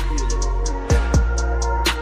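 Background music with a beat of deep kick drums that drop in pitch, over fast, even hi-hat ticks.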